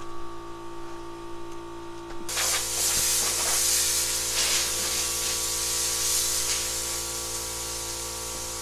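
Compressed air hissing steadily from an air-hose blow nozzle, starting about two seconds in, as dust is blown off a masked, primed car body to prepare it for paint. A low steady hum lies underneath throughout.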